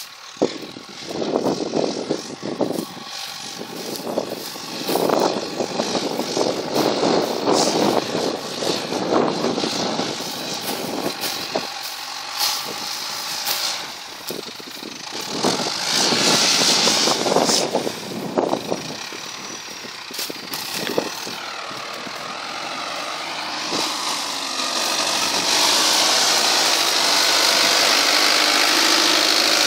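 New Holland farm tractor's diesel engine running under load as it pulls a disc plough through rice stubble, growing louder and steadier over the last few seconds as it comes close. Before that, irregular gusting noise.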